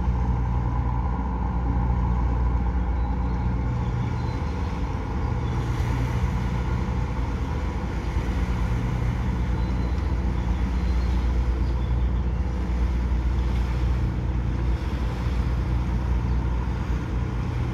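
A boat's engine running steadily, a low drone under a rushing hiss.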